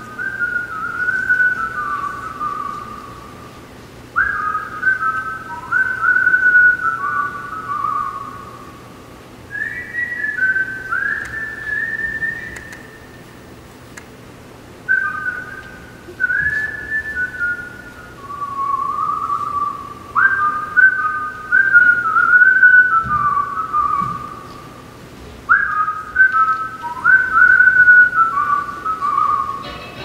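Recorded animal-call sound effect: repeated phrases of high whistled notes, each starting sharply and stepping down in pitch, a new group of phrases about every five seconds.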